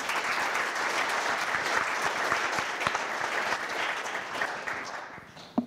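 Audience applauding, many hands clapping steadily, then fading out over the last second.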